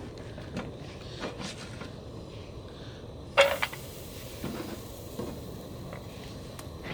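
Cookware being handled at a camp stove: a few small knocks and one louder clank about three and a half seconds in, over a steady hiss.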